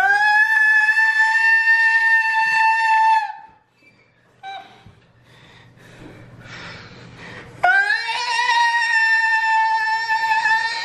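An orange tabby cat yowling while held down on an exam table: two long, steady-pitched yowls, each sliding up briefly at the start and then holding. The first lasts about three seconds; the second starts about three-quarters of the way through and is still going at the end.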